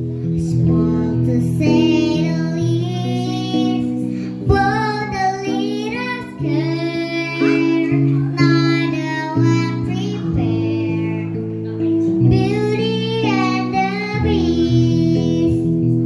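A child's voice singing a song over guitar accompaniment. The voice comes in about two seconds in and sings in phrases with short breaks between them.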